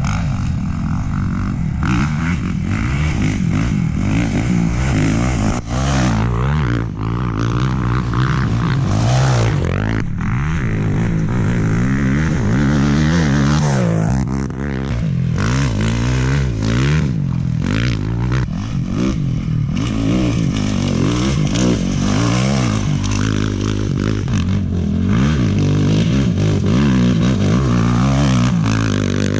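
Off-road racing motorcycle and quad engines revving hard, their pitch rising and falling as they accelerate, shift and go past, one engine after another.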